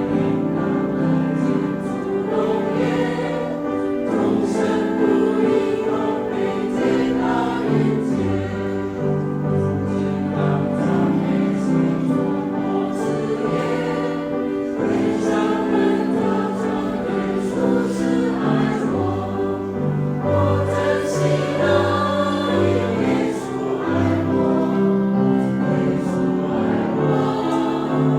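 Senior church choir singing a hymn together, with sustained, changing chords.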